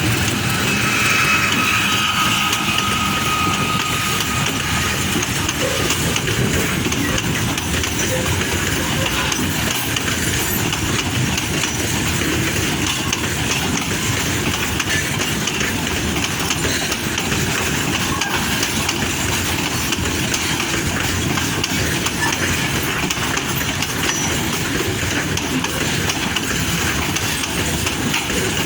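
Freight train running steadily along the track, its noise even and unbroken, with a faint high whine in the first few seconds.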